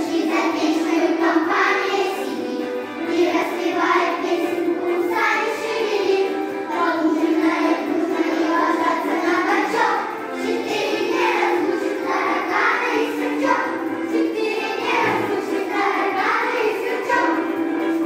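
A children's choir singing a song together in unison, with continuous accompaniment.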